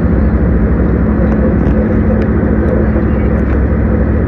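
Steady low rumble of road and engine noise heard from inside a moving vehicle at speed, with a low hum and a few faint ticks.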